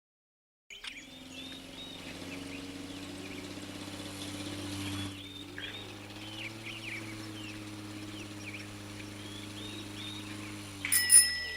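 Birds chirping over a steady low hum, starting after a moment of silence. Near the end a sharp click, the loudest sound, comes with a brief high steady tone.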